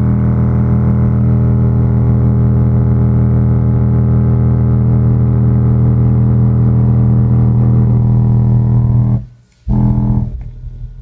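Skar Audio ZVX-8 8-inch SPL subwoofer playing a 50 Hz test tone at high power: a loud, steady low hum. About nine seconds in it cuts out, comes back for half a second, then drops away.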